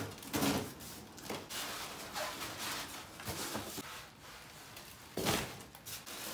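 Cardboard shipping box being torn open and handled, with rustling cardboard and crinkling plastic wrap around a styrofoam-packed stand mixer, and a louder thump about five seconds in.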